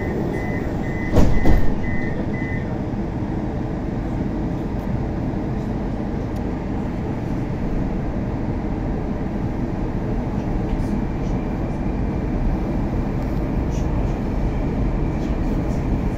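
Moscow metro 81-765 "Moskva" train departing: the door-warning beeps stop about two and a half seconds in, the doors shut with a loud thump just over a second in, then the train moves off with a steady rumble that slowly grows, a faint high whine creeping up in pitch as it picks up speed.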